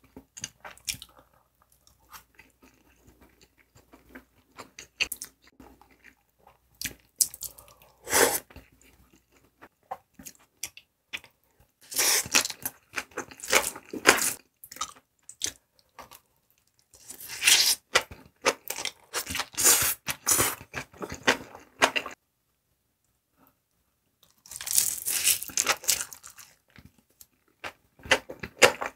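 Close-miked chewing of a full mouthful of spicy stir-fried noodles: wet, crunchy clicking chews that come in bursts, with a short pause a little after the middle.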